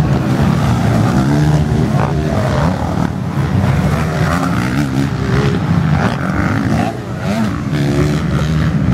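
Motocross dirt bike engines revving hard as they ride the track, several overlapping, their pitch climbing and dropping over and over.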